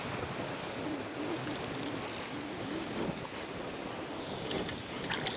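Steady outdoor noise of wind and water, with two short runs of rapid, high clicking, about a second and a half in and again near the end.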